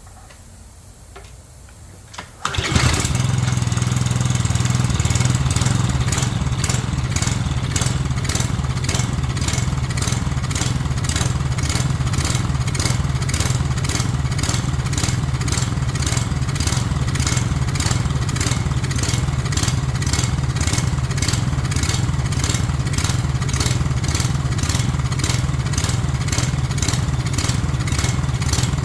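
Craftsman pressure washer's small gas engine starting suddenly about two and a half seconds in, then running steadily with a strong low hum and a regular pulse two or three times a second.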